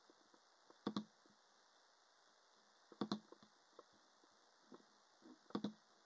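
Near silence broken by three short double clicks: about a second in, at about three seconds, and near the end.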